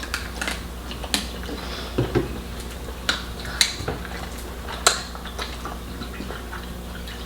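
Scattered sharp clicks and light taps, about eight to ten at uneven intervals, over a steady low hum.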